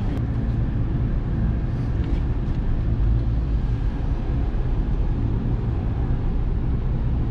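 Nissan car driving, heard from inside the cabin: a steady low rumble of engine and road noise.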